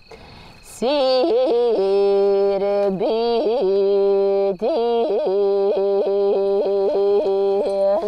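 A woman singing held notes broken again and again by quick yodel-like flips and catches in the voice, in Sakha style. It starts about a second in, with a brief break about halfway through.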